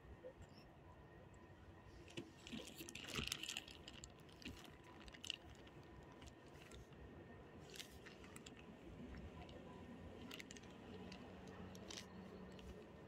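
Faint crinkling and clicking of a clear plastic zip-top snack bag being handled, densest and loudest about three seconds in, with a few single clicks later on.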